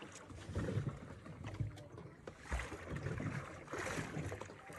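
Small waves lapping and slapping against the hull of a drifting fishing boat, in irregular low splashes.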